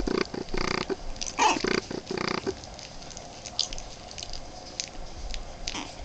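Young Boston Terrier puppies, about three weeks old, grunting and squeaking in a run of short sounds over the first two and a half seconds, one rising into a squeal, then a few faint clicks as they stir.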